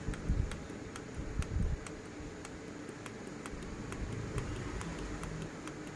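Small tactile push-buttons on a VGL/VGH programmer board clicked over and over, about three clicks a second, as the gate voltages are stepped up, with a few low knocks from handling in the first two seconds.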